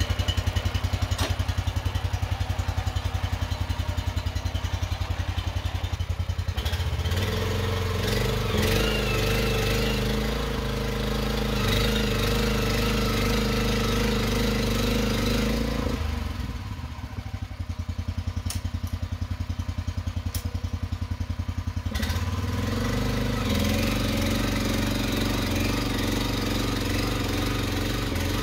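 Walk-behind two-wheel tractor's engine running as it drives a rotary tiller and ridging plough through the soil to form a raised bed. The engine note shifts about a quarter of the way in, drops lower and a little quieter for several seconds past the middle, then picks up again.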